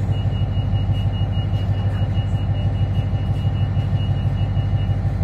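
Interior of a 3000-class diesel railcar standing at a platform: a steady low diesel engine hum, with a thin high-pitched tone pulsing rapidly that stops shortly before the end.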